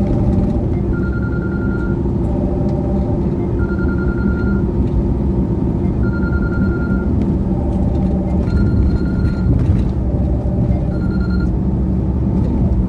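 Steady low rumble of a vehicle driving at road speed. Over it, a repeating electronic tone comes back about every two and a half seconds: a short lower two-note tone, then a higher pulsing tone lasting about a second.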